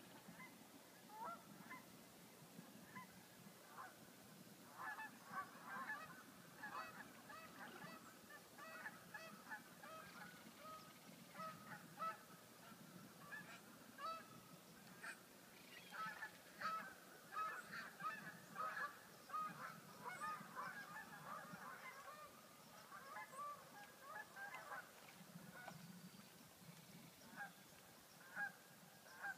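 A flock of waterfowl calling faintly, many short calls overlapping, busiest through the middle.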